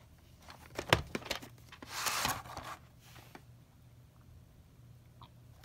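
A VHS tape being handled and taken out of its case: several sharp plastic clicks about a second in, then a brief scraping slide.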